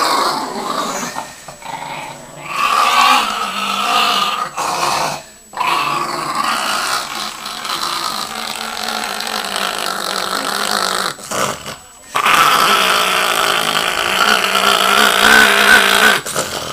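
Chihuahua growling angrily at being towel-dried after a bath. The growl comes in long stretches broken by short pauses about five, eleven and sixteen seconds in.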